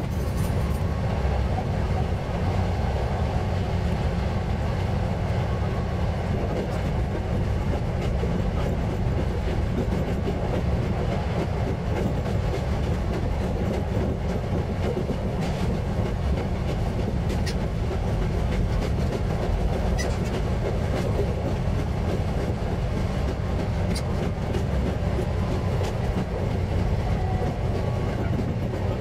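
KTR700-series diesel railcar running along the line, a steady rumble of engine and wheels on the rails, with a few sharp clicks from the track.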